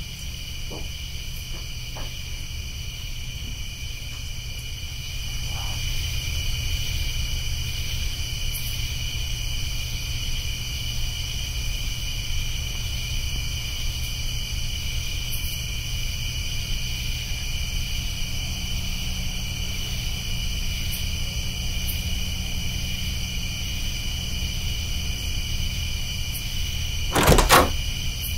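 Night insects chirring steadily over a low steady rumble. Near the end, a short loud clatter of a door being opened or shut.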